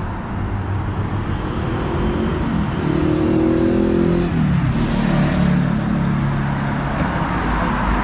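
A road vehicle's engine accelerating nearby: its pitch climbs, drops at a gear change about halfway through, then climbs again, over a steady hum of street traffic.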